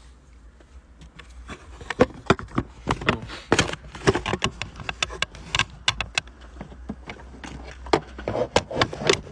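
A phone being handled and set back up on a desk: an irregular run of close, sharp knocks and taps against the microphone, beginning about a second and a half in.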